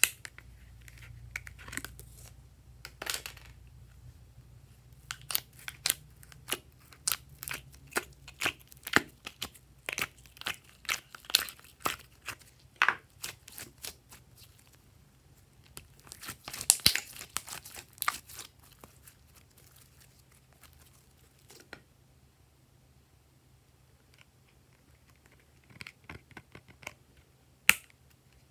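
Slime being pulled and squeezed by hand, with a quick series of short wet pops and crackles. The crackling is densest a little past the middle, then eases off, with a couple of sharp clicks near the end.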